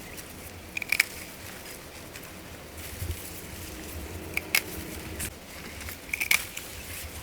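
Three sharp snipping cuts of a blade through stalks, about a second, four and a half and six seconds in, with faint rustling between them.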